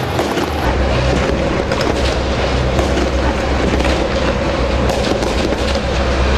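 Battle tank running close to a hull-mounted camera: a heavy, steady engine and track rumble with frequent sharp knocks and clanks throughout. The low rumble gets heavier about half a second in.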